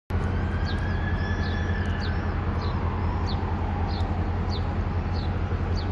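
A bird chirping over and over, short high chirps about every half second, over a steady low hum.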